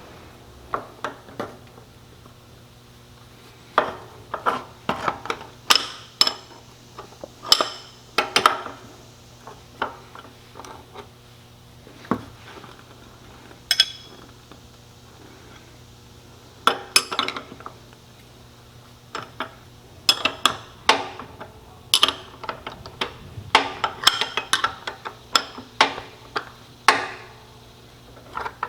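Wrench and metal wheel hardware clinking and clanking as a zero-turn mower's wheel is refitted and tightened: irregular sharp clicks and knocks in clusters, with pauses between.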